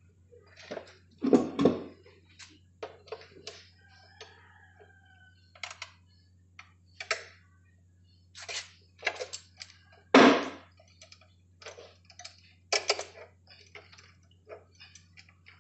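Irregular clicks, clinks and knocks of hand tools and metal parts on a stripped-down motorcycle engine being worked on by hand, with a few louder knocks about a second and a half in, near the middle and later on.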